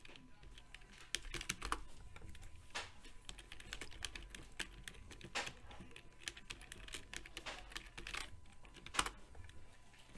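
Typing on a computer keyboard: an irregular run of quick key clicks, with a few louder strokes among them.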